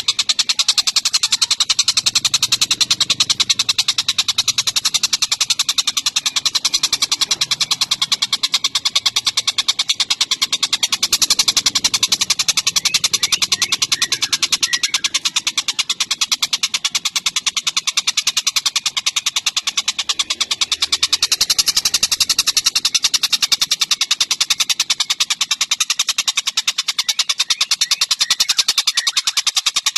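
Caged dollarbird (tengkek buto) calling in a long, rapid, unbroken chatter of closely spaced harsh notes.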